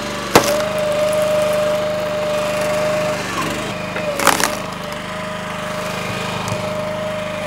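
Split-Fire 3490 two-way hydraulic log splitter running, its engine humming steadily with a steady whine over it. Wood splits with a sharp crack about half a second in, and again in a short cluster of cracks around four seconds in.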